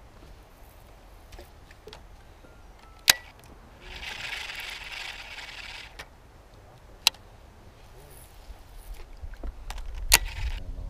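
Baitcasting reel clicking sharply three times, a few seconds apart, with a hiss lasting about two seconds between the first two clicks.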